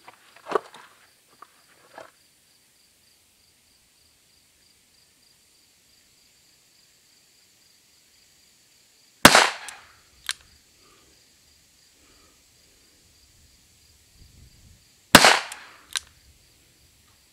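Two shots from a Smith & Wesson 617 .22 LR revolver with an 8 3/8-inch barrel, fired from a Ransom rest about six seconds apart. Each shot is followed about a second later by a short click, and a couple of lighter clicks come near the start.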